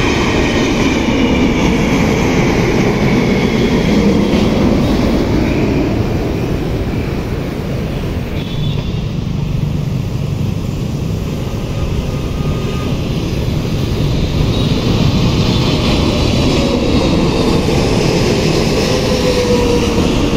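Jet engine roar of widebody airliners passing low overhead on approach with gear down. Over the first seconds a falling whine comes from one jet passing overhead. The sound then builds again as a Korean Air Cargo Boeing 777 freighter comes overhead near the end, its pitch falling as it passes.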